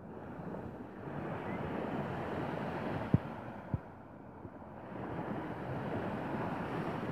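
Small waves washing onto a sandy beach with wind buffeting the microphone; the wash swells twice. Two short thumps come a little after the middle.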